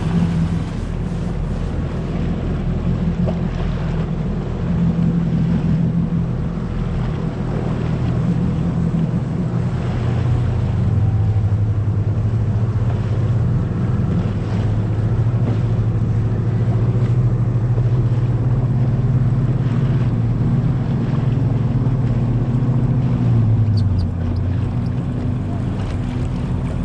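Jet ski engine running steadily under way on open water, with wind and water rush; the engine note drops in pitch near the end.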